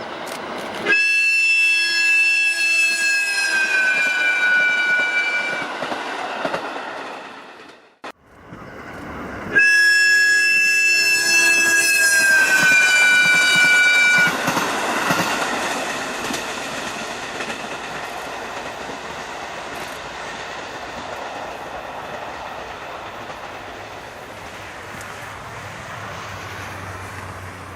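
Horn of a KiHa 40/KiHa 54 diesel railcar train sounding two long blasts, each about four to five seconds, each dropping in pitch near its end as the train passes. The running noise of the train on the rails follows and slowly fades.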